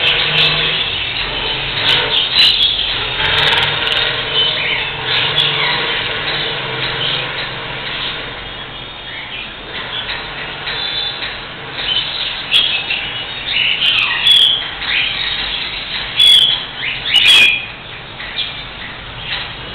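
Cockatiel chirping and calling again and again, with the loudest calls in the last third. A steady low hum runs underneath.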